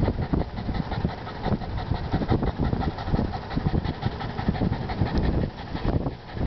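A dog panting while riding in a bicycle's front wire basket, over a low rumble and irregular rattling from the moving bike.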